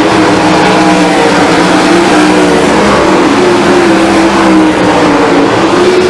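A field of 410 sprint cars racing on a dirt oval: several methanol-burning 410-cubic-inch V8s running loud at high revs together, their pitches rising and falling as the cars come off the turns and run down the straights.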